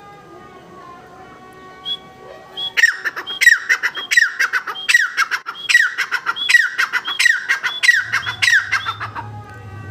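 Grey francolin calling: a loud run of about nine repeated calls, each a short high note and a falling one, about three every two seconds, starting about three seconds in and stopping about nine seconds in.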